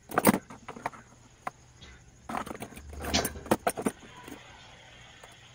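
Handling noise from bench tools: a quick cluster of clicks and knocks just after the start, then a longer run of clatter from about two to four seconds in, as a soldering iron and tweezers are picked up and put down.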